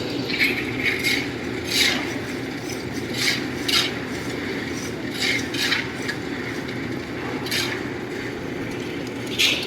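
Construction site work: a steady machine drone with about a dozen short, irregular metallic scrapes and clinks over it.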